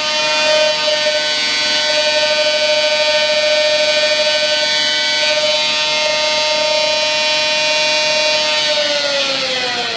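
Motorcycle running at a steady high speed, about 150 km/h, on a roller dynamometer during a speedometer accuracy test: a constant high whine from the engine and spinning rollers. Near the end it falls in pitch as the bike slows.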